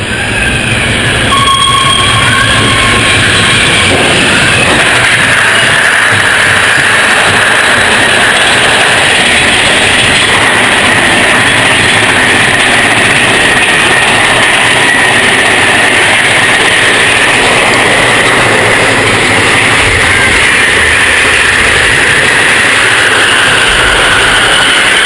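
Big Thunder Mountain Railroad mine-train roller coaster running on its track, heard from the front seat: a loud, steady rattle and rumble with a high whine held above it. It swells in the first second, then stays even.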